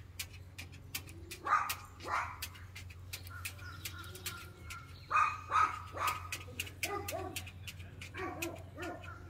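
A cockatoo giving a run of short, bark-like calls that come thick and fast in the second half, with a few light clicks of claws on the table rim near the start.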